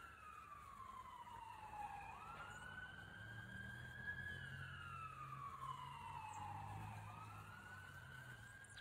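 Faint emergency vehicle siren wailing. Its pitch slides slowly down, snaps back up and climbs again, about once every four and a half seconds, over a low rumble.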